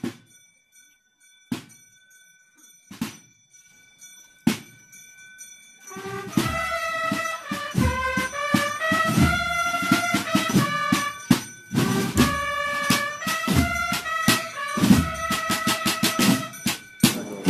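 Procession band of brass and drums marching: slow single drum beats about every second and a half, then about six seconds in the brass strikes up a melody over steady drumming.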